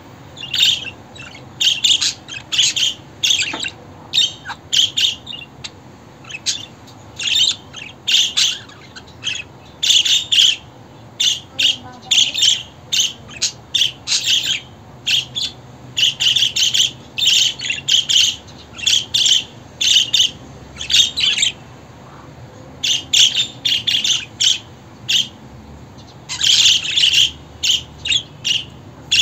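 Budgerigars chattering and chirping in quick runs of short, high chirps, with short pauses between the runs.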